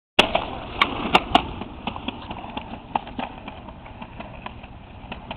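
Ripstick caster board rolling on a concrete sidewalk, its wheels clacking over the joints. A few sharp clacks come in the first second and a half, then fainter, irregular clicks as it rolls away.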